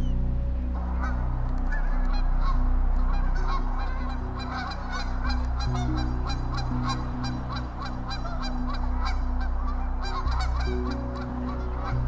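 A large flock of Canada geese honking, many calls overlapping in a dense chorus that starts about a second in and thins out near the end. Background music with long held low chords plays underneath.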